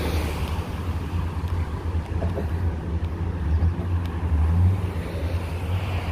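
Wind buffeting the phone's microphone as a steady, uneven low rumble, with road traffic passing alongside.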